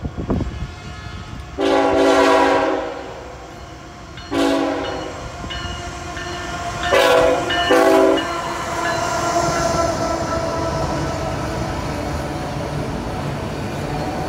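Norfolk Southern ES44AC diesel locomotive's air horn sounding: two long blasts, then two short blasts about seven seconds in. The freight train's rumble and wheel noise carry on as it passes.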